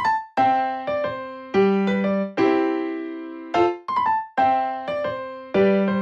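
Background music on a keyboard: piano-like chords and short melodic phrases, each note struck sharply and fading away.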